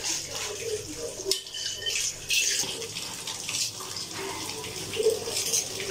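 Kitchen tap running into a sink, the stream splashing unevenly as dishes are rinsed under it.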